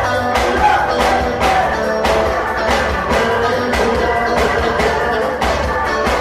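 Music with a steady beat, about two beats a second, under a held melody.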